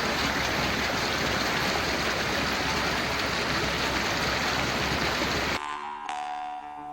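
Loud, steady rushing roar of a waterfall, cut off suddenly about five and a half seconds in by music with struck or plucked notes.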